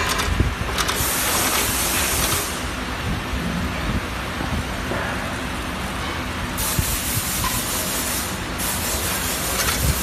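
Automatic snap button attaching machine running with a steady low rumble, overlaid by hissing stretches that start and stop abruptly. The longest two run about two seconds each, in the second half.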